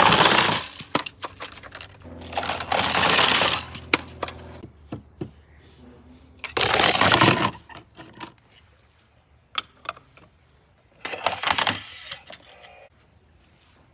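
Toys being handled and clattering: four bursts of rattling noise, each lasting one to two seconds, with scattered sharp clicks between them.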